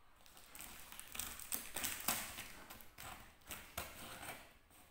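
Scissors cutting into a parcel's packaging: an irregular run of short snips and crinkles.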